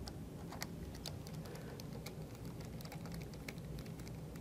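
Faint, irregular light clicks of a screwdriver tip and small metal screws as the screws are turned loosely into a motor's mounting holes, over a low steady hum.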